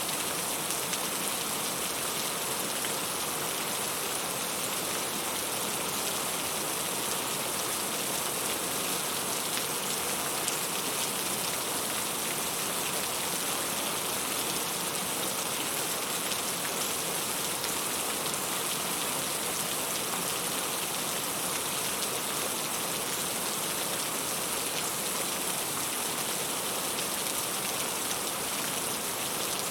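Steady rain: an even hiss flecked with the fine patter of drops, unchanging throughout.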